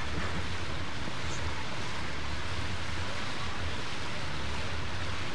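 Steady wind rumbling and hissing on the camcorder microphone.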